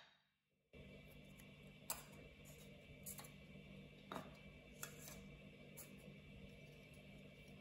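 Several light, sharp clicks and taps as the front plate and nameplate of a Krasnogorsk-3 film camera are handled and separated, over a faint steady hum.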